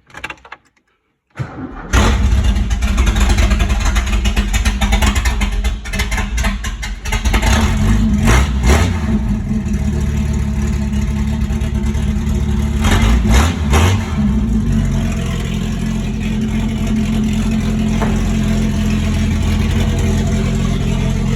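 The inline-six engine of a 1986 Ford XF Falcon, running with no exhaust fitted, cranks on jump-pack power and catches about two seconds in. It runs loud and open, is revved a few times, and settles to a steadier idle in the second half.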